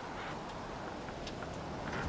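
Steady outdoor background noise, an even rushing hiss, with a few faint clicks.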